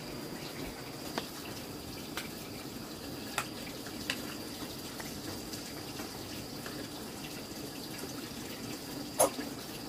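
Steady trickle of running water, with a few small clicks and one louder knock about nine seconds in.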